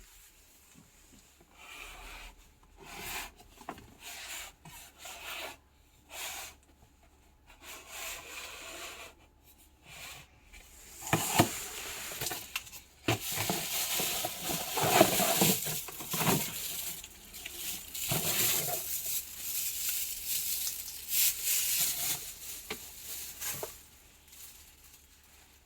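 Irregular rubbing and rustling handling noises, scattered at first and then denser and louder from about eleven seconds in.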